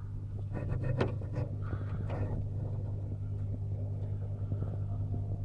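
A steady low hum, with light clicks and rustling in the first half and one sharper click about a second in.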